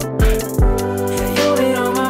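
Background R&B song with a kick drum beat under sustained chords; no singing in this stretch.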